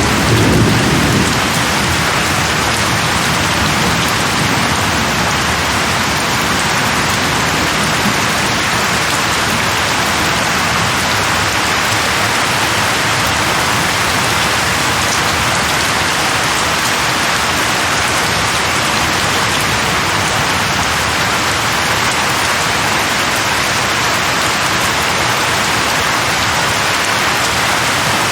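Steady, dense rain falling and pattering on surfaces. A low rumble fades out in the first second or two.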